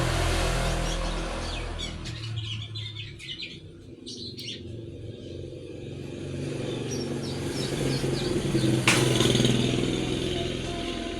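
A songbird, sold as a kepodang hitam (oriole), giving quick high chirps and short calls over the low hum of passing motor vehicles. The hum fades early, then swells again, and there is one sharp click about nine seconds in.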